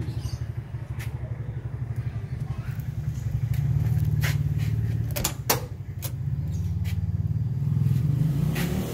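Mazda E2000 van's engine idling, a steady low pulsing hum that grows louder after a few seconds, with a few sharp clicks a little past halfway.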